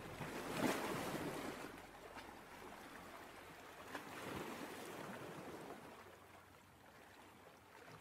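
Ocean surf washing in two swells, the first peaking about a second in and the second about four seconds in, then easing off.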